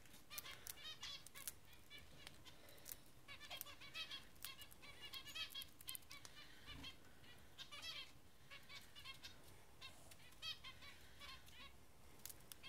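Rosy Bourke's parakeet pecking and crunching Cheerios threaded on a cage toy: a faint, steady run of quick little clicks and crackles.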